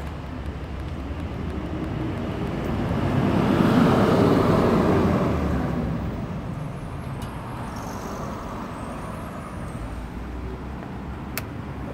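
A road vehicle passing on the street: its noise swells to a peak about four seconds in and then fades, over a steady low hum. A single sharp click comes near the end.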